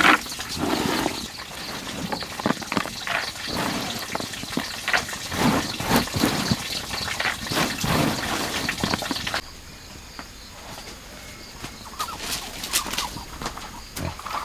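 Hands mixing wet pig feed in a plastic bucket: squelching, sloshing and scraping against the bucket wall, with many small clicks. About nine seconds in it drops to quieter hand rubbing with a few scattered clicks.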